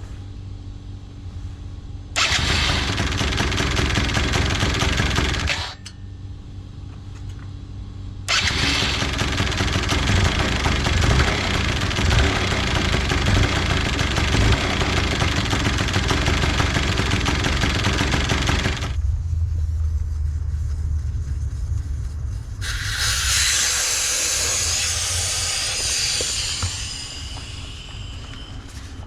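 Yamaha BW'S 100 two-stroke scooter engine running: idling, then revved hard twice, for about three seconds and then about ten seconds, dropping back to idle between. Near the end comes a shorter burst of high-pitched noise that fades away.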